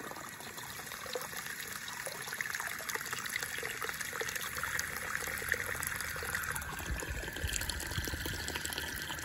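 A steady stream of creek water running out of a bamboo pipe and splashing, partly into a steel bowl of unhulled rice seed being filled for soaking.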